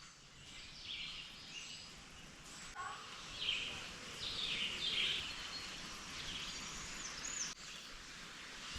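Scattered short bird chirps and calls over a steady background hiss, with a quick rising call about seven seconds in.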